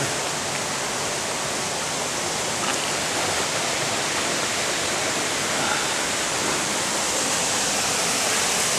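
Waterfall pouring into a pool: a steady, even rush of falling water, full from the low end up to a bright hiss.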